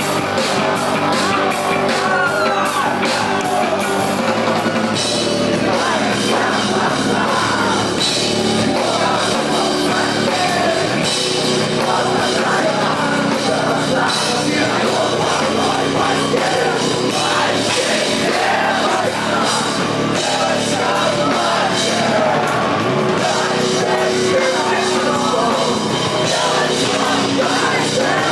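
Rock band playing live, with drums, heavy instrumentation and a sung, partly shouted lead vocal; the band gets fuller and brighter about five seconds in.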